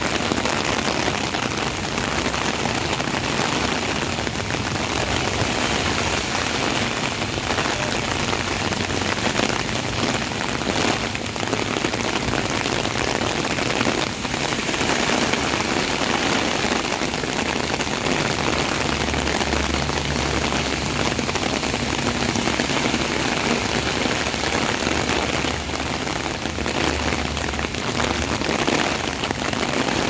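Heavy rain pouring onto a flooded road, a dense, steady hiss of drops on water and pavement. Through the second half a low rumble of passing traffic runs under it.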